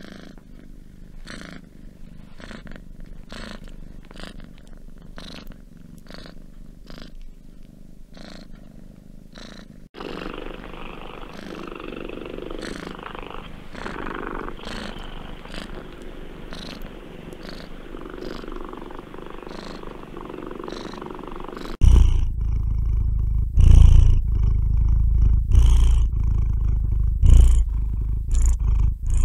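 Cats purring in a steady, rhythmic purr that pulses with each breath. About ten seconds in it changes abruptly to a louder, fuller purr. About twenty-two seconds in a much louder, deeper rumbling purr takes over.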